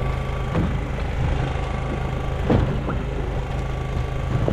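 Boat engine running with a steady low hum, with a few short splashes as a hooked sea catfish thrashes at the surface beside the hull.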